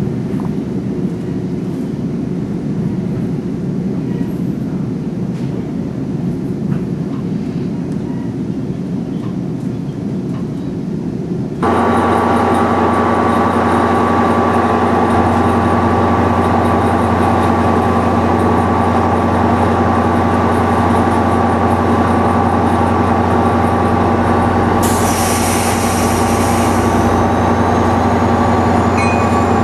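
Steady low rumble of a moving commuter train, heard from inside the coach. About twelve seconds in, this gives way to the steady drone of an idling F40PH-2CAT diesel locomotive at the far end of a standing train. A hiss joins in about 25 seconds in.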